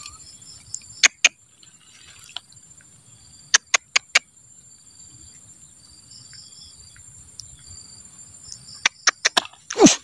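Faint insect chirping, broken by sharp clicks in small groups: two about a second in, four more a few seconds later, and another quick run near the end, followed by a louder sound that falls in pitch just before the end.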